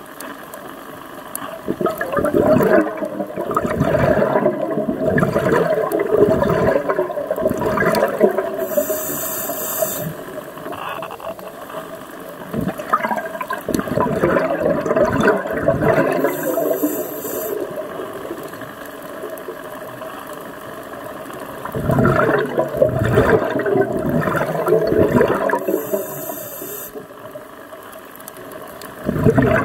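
Scuba diver breathing through a regulator underwater: long bubbling exhalations of several seconds, each followed by a short hiss of inhalation, three slow breaths in all.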